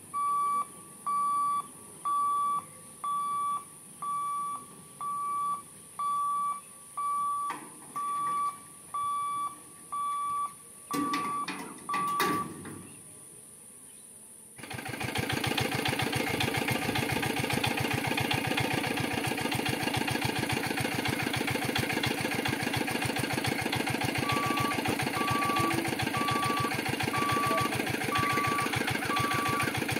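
A railway level-crossing warning beeper sounding single electronic beeps at about one a second while the boom barriers close. A few clicks come near the last beeps. About halfway through, a loud steady fast mechanical rattle starts suddenly, and spaced warning beeps come back near the end.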